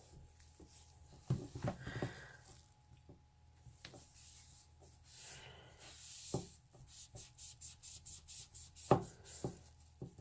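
Scrubbing strokes on a doll's plastic surface, quiet and scattered at first, then brisk and rhythmic at about three strokes a second in the second half, with a few soft knocks.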